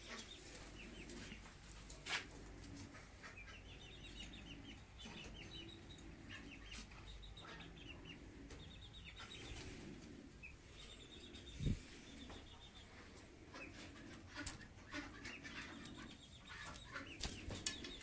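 Caged domestic pigeons cooing softly, with several quick runs of high chirping calls. One dull thump about two-thirds of the way through is the loudest sound.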